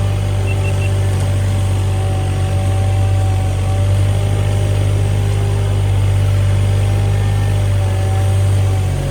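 An engine running steadily at constant speed: a loud, unchanging low hum with a few faint steady higher tones above it.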